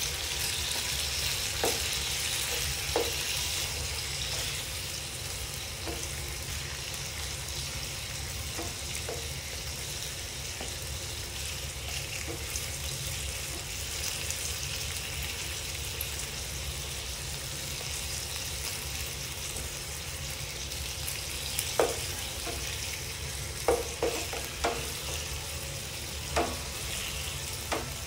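Sliced pork belly and garlic sizzling in oil in a nonstick frying pan, a steady hiss. Plastic spatula and turner tap and scrape against the pan as the slices are turned, with the taps coming more often near the end.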